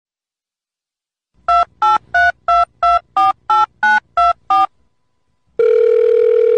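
Touch-tone telephone keypad beeps added as a sound effect: ten short two-tone beeps, about three a second, each a different key. They are followed, about five and a half seconds in, by a steady telephone tone.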